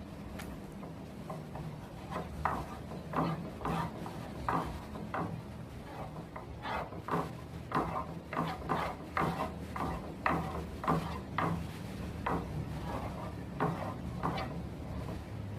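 Irregular hand strokes rubbing or scraping on a wooden board, roughly one to two a second and thickest in the middle, over a steady low hum.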